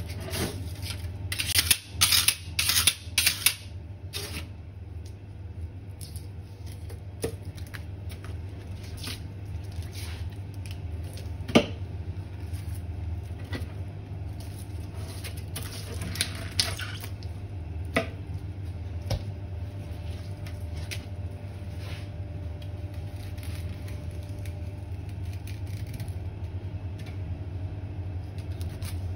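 A long filleting knife cutting and scraping through a whole sea bream on a plastic cutting board. A few loud, quick scraping strokes come at first, then softer slicing with occasional sharp clicks as the blade meets bone or the board, over a steady low hum.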